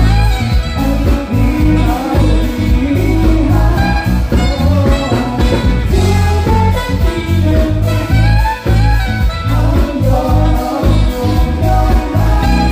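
Live band music with saxophone and electric bass guitar: a melody line over a heavy bass part with a steady beat.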